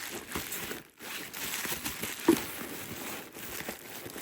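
Plastic packaging rustling and crinkling as medical supplies are handled, with small clicks and one sharper knock about two seconds in.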